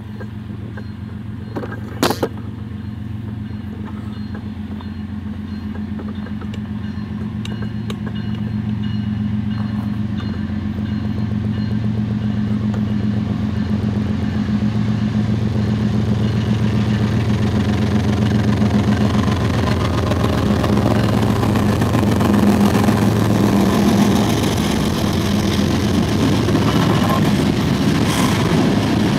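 An approaching coal train, its diesel locomotives giving a steady low engine drone that slowly grows louder, then the rolling rumble of coal cars passing close by near the end. A single sharp knock sounds about two seconds in.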